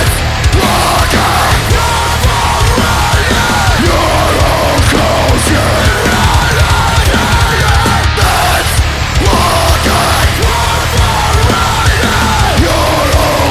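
Loud, aggressive heavy metal band music, dense and steady throughout.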